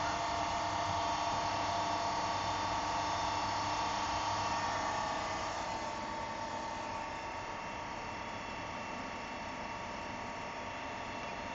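HCK60Y CNC machining center running with a steady, many-toned machine hum during tool setting, easing off somewhat about halfway through.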